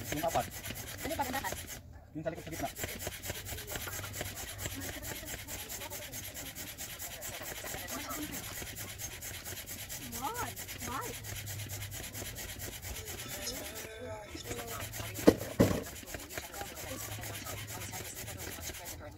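Hand-operated air pump being worked up and down, giving a continuous rubbing whoosh of piston strokes. Two sharp knocks come close together about two-thirds of the way through.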